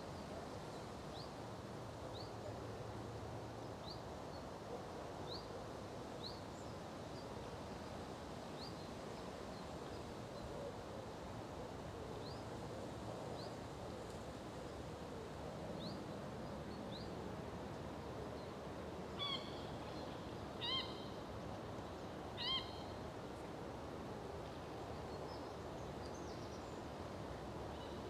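Birds calling over a quiet outdoor background: a thin, high chirp repeated about once a second, then three louder calls about a second and a half apart a little past the middle.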